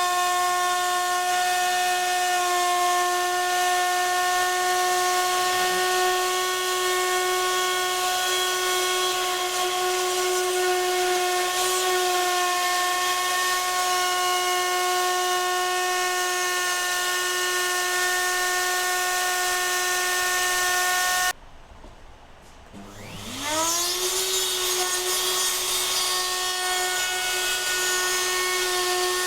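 CNC router spindle running at a steady whine while milling aluminium. About two-thirds of the way through the whine cuts off suddenly. After a couple of seconds it spins back up, rising in pitch to the same steady whine.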